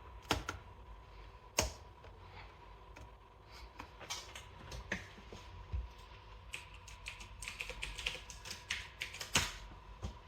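Keys pressed on a laptop keyboard: a few separate sharp clicks, then a quicker run of taps in the second half, over a faint steady high tone.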